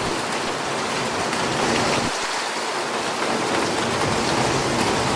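Steady heavy rain falling on wet paving, with gusty wind rumbling on the microphone that eases briefly about two seconds in.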